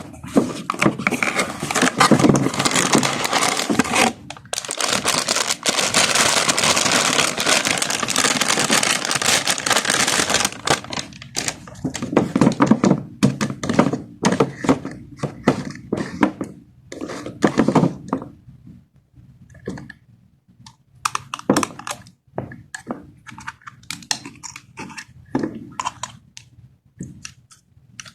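Toy packaging being unboxed: a long stretch of continuous crinkling and tearing of plastic wrap and cardboard, followed from about halfway in by scattered clicks and knocks of plastic toy pieces being handled.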